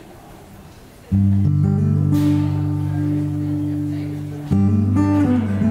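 Acoustic guitar opening a song: after about a second of quiet, a chord is strummed and left to ring for a few seconds, then strummed again about four and a half seconds in, moving to a new chord near the end.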